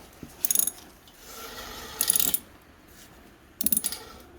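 Hand ratchet wrench clicking as it is worked on a door-panel fastener: three short bursts of rapid clicks.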